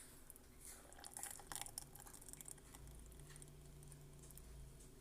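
Near silence: room tone, with a few faint light clicks and rustles in the first two seconds.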